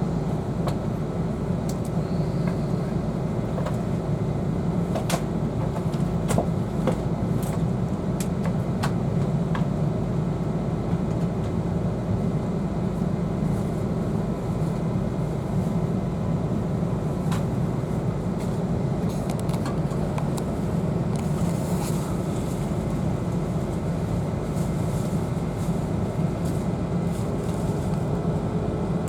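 Inside an E2 series Shinkansen pulling away: a steady low running rumble with scattered sharp clicks, and a faint whine rising in pitch near the end.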